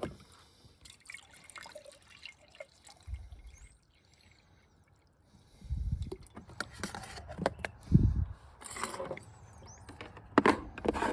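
Instant coffee being made with hot water from a hot pot: intermittent pouring and liquid sounds with clinks and handling knocks, quiet for a couple of seconds in the middle.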